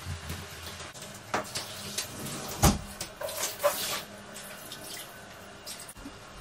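Handheld shower head spraying water for about a second, rinsing the glass of a shower enclosure, among knocks and clatter of handling; the loudest sound is a single thump just before the spray.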